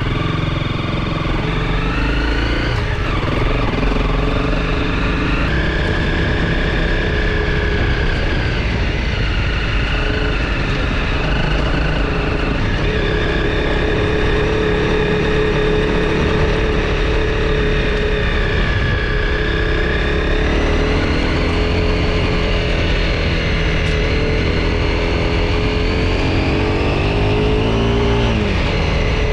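Honda CRF250 Rally's single-cylinder four-stroke engine running as the bike is ridden along a dirt track, its note stepping up and down with throttle and gear changes. Near the end the note dips and then climbs again.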